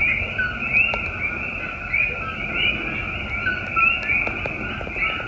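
Chorus of coqui frogs calling, many overlapping two-note "ko-kee" calls, each a short lower note followed by a higher, rising one.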